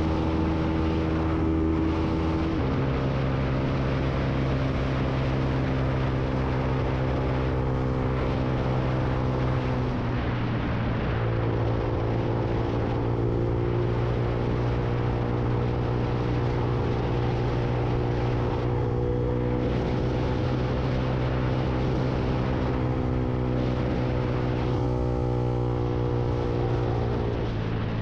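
Lexmoto Viper 125's single-cylinder four-stroke engine running under load while riding, with wind and road rush on the microphone. The engine note shifts in pitch about two and a half seconds in, dips and comes back around ten seconds, and changes again near the end, as gears or throttle change.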